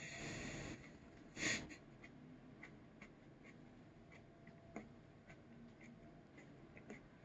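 Faint wet mouth clicks of someone chewing a soft, thawed chili pepper, after a breathy hiss at the start and one short sharp breath about a second and a half in.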